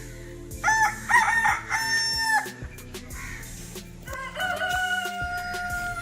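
Rooster crowing twice: a first crow about half a second in, and a second, long held crow starting a little after four seconds that trails off at the end.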